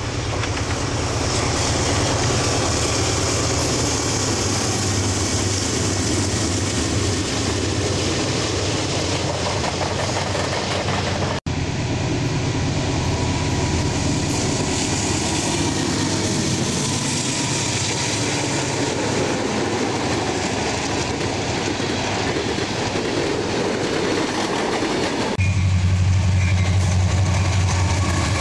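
Diesel freight locomotives and their trains passing close by: a steady engine drone under the clatter and rumble of wheels on the rails. The sound breaks off for an instant about eleven seconds in, and a louder, deeper engine drone comes in a few seconds before the end.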